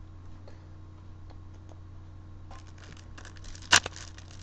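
Foil Yu-Gi-Oh booster pack wrapper crinkling as it is handled, the crackle getting busier, then a sharp tear near the end as the pack is ripped open.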